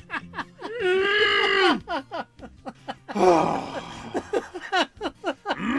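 A man's voice acting out cartoon characters without words: quick giggling "ha ha ha" laughter alternating with long, strained groans of effort, about a second in and again past the middle.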